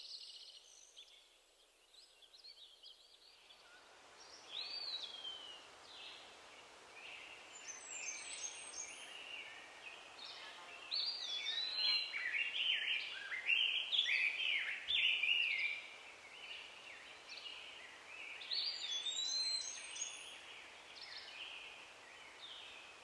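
Birds chirping and calling: many short chirps and falling whistles, several overlapping, coming in about four seconds in and thickest in the middle.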